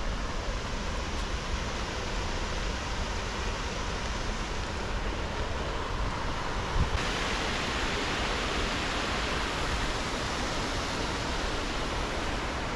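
Steady rush of water from a mountain river spilling over a small concrete weir, turning suddenly brighter and louder about seven seconds in.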